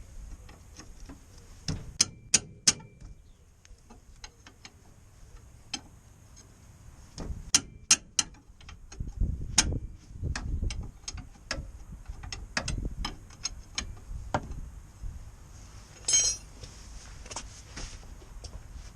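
Sharp metallic clicks and clinks of hand tools on steel parts during work on a car's front hub, coming in irregular clusters, with three hard strikes about two seconds in and another pair around eight seconds. A short bright metallic rattle comes near the end.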